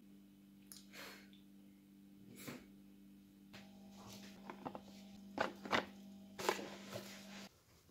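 Light clatters and taps of a clear plastic food container being handled as food is packed into it, over a steady low hum that stops suddenly near the end.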